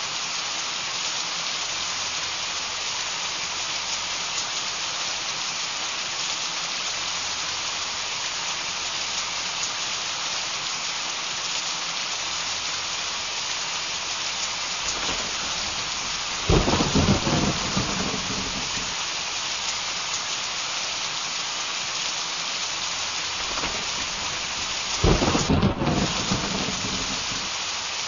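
Heavy rain pouring steadily, with two claps of thunder, one a little past the middle and one near the end, each rumbling for about two seconds.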